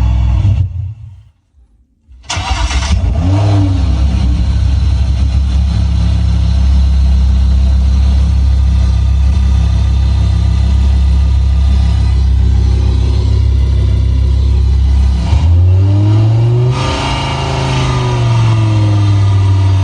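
Synthetic combustion-engine sound played by an add-on sound generator on a BYD Yuan electric car. It dies away about a second in, then starts up again with a start-up burst a couple of seconds later and runs steadily like an idling engine. Near the end it revs up and falls back.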